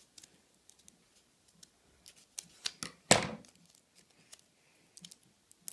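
Scissors snipping through folded paper in a series of short sharp cuts, followed about three seconds in by a single louder thump, then small clicks and paper handling noises.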